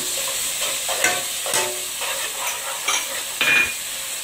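Spatula scraping and stirring onion-tomato masala in a non-stick pot, in irregular strokes about once or twice a second, over a steady sizzle of the masala frying in oil.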